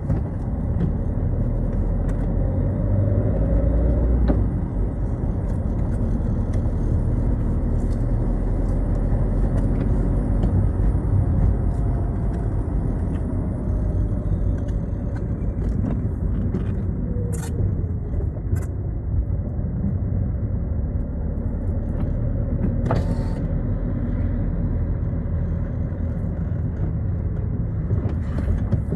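Citroën Xsara driving on a wet road: a steady low rumble of engine and tyre noise, with the engine's pitch rising and falling a few times as the car speeds up and slows. A few light clicks sound about two thirds of the way in.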